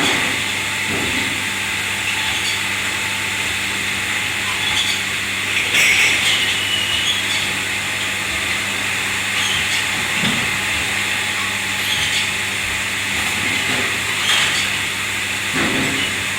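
Steady hum and hiss of kitchen machinery, with a few knocks and clinks scattered through.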